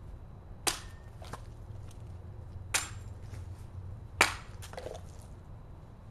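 Sword blade slicing through a plastic bottle in test cuts: three short, sharp cracks, the loudest about four seconds in, with fainter clicks of the cut pieces after them.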